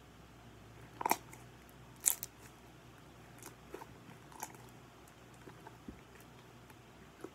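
Pink slime being stretched and pressed into its plastic tub by hand, giving a few short sharp clicks and pops: two louder ones about a second and two seconds in, then several fainter ones.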